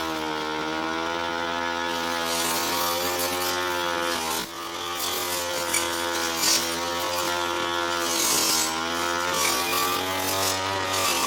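Two-stroke brush cutter engine running at high revs while cutting tall, thick grass, its pitch rising and falling as the throttle is worked. The engine dips briefly about four and a half seconds in, then picks up again.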